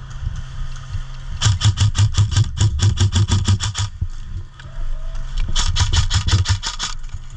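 Two bursts of rapid airsoft gunfire: a run of sharp, evenly spaced shots lasting about two and a half seconds, then a shorter burst of about a second, over a low rumble.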